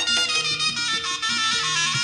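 Live jaranan ensemble music: a shrill double-reed slompret plays a quick melody over lower gamelan notes and drum strokes.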